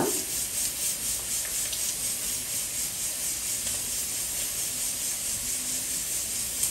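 A steady, even hiss with no clear strikes or rhythm.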